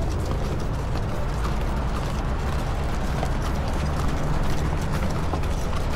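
Horses' hooves clip-clopping at a walk as riders move along a trail, over a steady low rumble.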